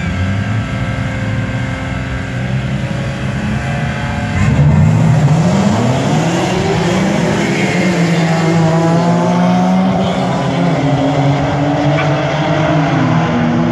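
A grid of BMW M3 race cars' straight-six engines holding steady revs, then about four and a half seconds in the pack launches from a standing start. Revs rise and drop repeatedly through the gear changes as the cars accelerate away.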